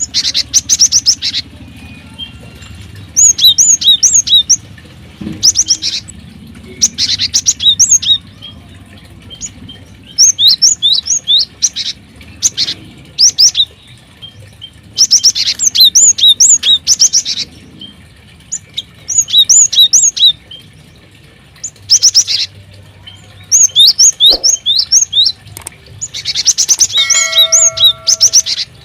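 Small aviary birds chirping in short bursts of rapid high notes, one burst every couple of seconds, over a faint low hum.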